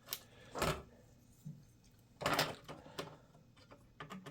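Plastic clicks and scraping of memory modules being handled and pushed into motherboard SIMM slots, in a few separate bursts, the loudest about two seconds in.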